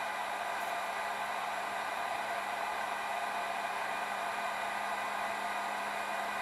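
Electric heat gun running on a workbench: a steady rush of blown air with a constant low motor hum.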